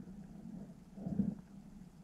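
Underwater ambience picked up by a submerged camera: a low, uneven rumble with a faint steady hum and irregular soft thumps, one about a second in.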